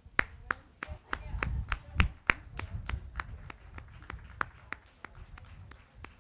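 Steady rhythmic hand clapping, about three sharp claps a second, loudest for the first few seconds and then fainter, over a low rumble.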